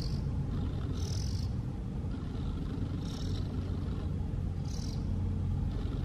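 Fledgling oriental magpie-robin giving short high chirps, about one every second or two, over a steady low rumble.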